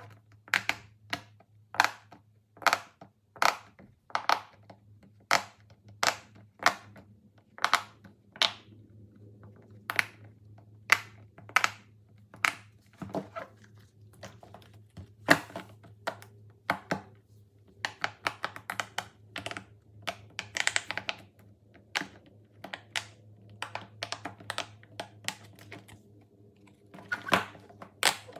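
A run of sharp clicks and pops from fidget toys being pressed and handled, about two a second at first, then sparser and uneven, with a faint steady hum underneath.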